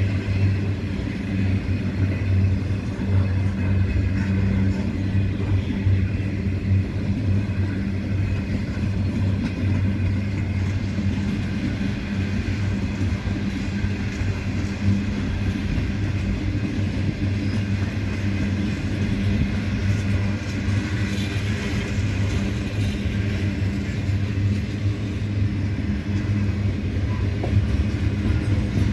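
Freight train wagons rolling past on steel rails, a steady rumble of wheels and bogies.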